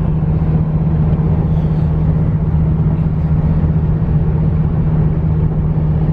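Dodge Viper GTS's 8.4-litre V10 engine droning steadily at cruising speed, with tyre and road noise, heard from inside the cabin.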